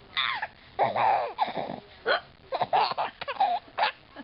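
A baby laughing in a string of short bursts, with a woman's short, sharp hiccups among them.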